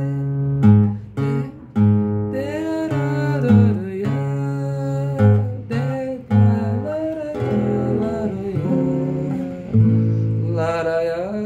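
A man singing the melody over his own nylon-string classical guitar, plucking low bass notes under the chords.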